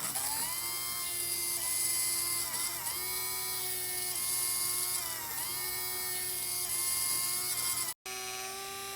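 Small DC motor and worm-gear gearbox of a K-Line toy backhoe accessory running with a steady, high whine. The pitch sags briefly every second or two as the digging arm cycles. The armature bearing has just been given a drop of oil to cure an awful screeching. Near the end it cuts abruptly to a steadier whine from the same type of motor.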